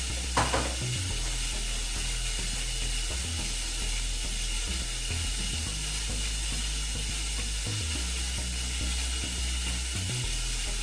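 Steady hiss of water running slowly into a two-piece toilet's tank through the fill valve, turned on low, with a single click about half a second in.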